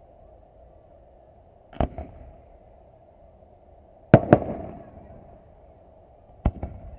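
Aerial firework shells bursting: three sharp bangs about two and a half seconds apart, each followed a fraction of a second later by a second, weaker report. The middle one is the loudest.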